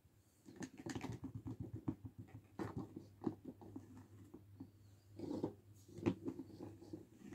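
Fingers tapping, rubbing and scratching on hollow plastic Hello Kitty toy figures, which clack against each other and the wooden table. The sound comes as quick clusters of light clicks and taps with short pauses between.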